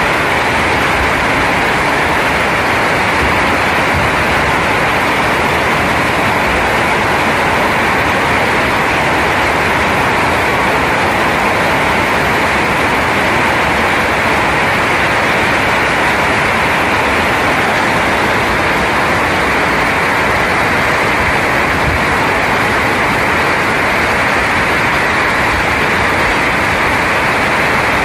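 Steady rain falling: a constant, even hiss with no breaks or single drops standing out.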